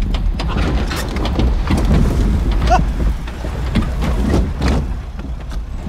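2023 Ford Bronco's engine running low and steady as it crawls over timber logs, with scattered knocks and a short rising squeak about three seconds in.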